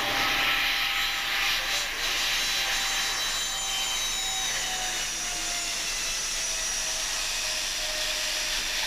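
Dornier Do 228's twin turboprop engines running as the aircraft passes low over the runway on its landing approach. The engine tone falls slowly in pitch as it goes by, over a steady rushing hiss.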